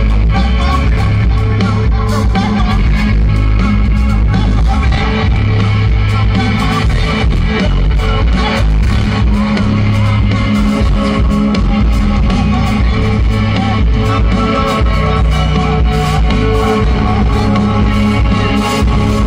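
Live rock band playing loudly through a PA, with electric guitar and drums and a man singing into a microphone.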